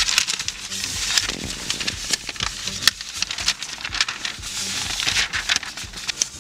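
Newspaper pages being turned and handled, the paper rustling and crackling irregularly with many small crisp snaps.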